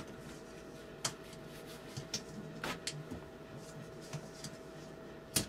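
Quiet handling noise: a few light, sharp clicks and taps at uneven intervals over a faint steady hum, as hands work a PVC pipe fitting freshly wrapped in thread tape.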